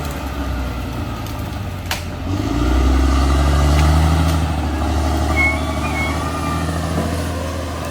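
Caterpillar D6R XL bulldozer's diesel engine running under load, pulling harder about two and a half seconds in, with short high squeals and a single sharp knock near two seconds from the working machine.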